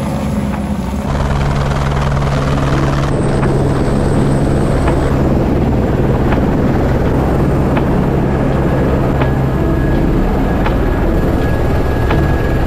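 Helicopter running nearby: a loud, steady drone of rotor and engine, with a few faint clicks. The tone shifts slightly a couple of times.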